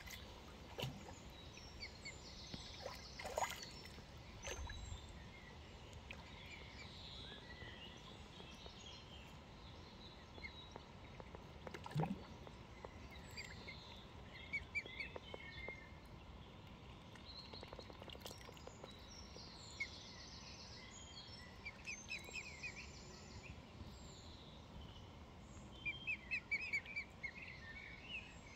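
Faint outdoor ambience of birds chirping and singing on and off over a steady low hiss, with a run of quick chirps near the end and a few soft knocks.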